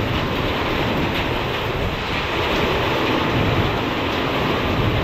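Heavy wind-driven rain from a severe thunderstorm pounding on glass, a loud steady rushing roar with a low rumble of wind underneath.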